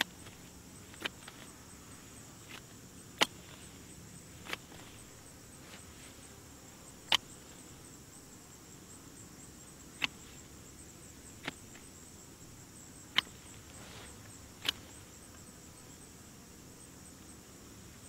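Hand shears snipping through weed stems: about eight sharp cuts, irregularly spaced one to three seconds apart.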